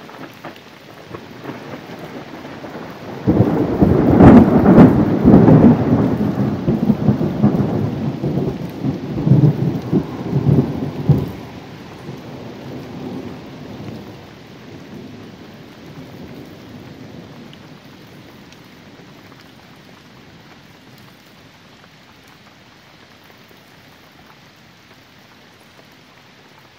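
Steady rain, with a loud thunderclap breaking suddenly about three seconds in. The clap crackles and booms for about eight seconds, then dies away as a fading rumble.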